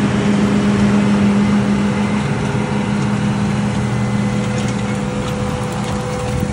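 John Deere tractor's diesel engine running with a steady drone as the tractor drives past pulling a planter, growing slightly quieter as it moves on.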